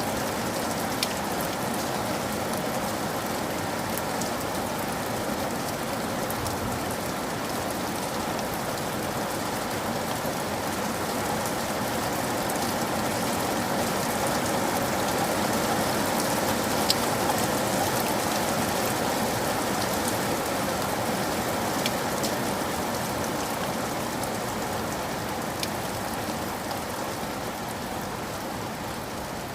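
Steady rain falling: an even hiss with scattered sharp ticks of single drops. It swells slightly partway through and eases off a little near the end.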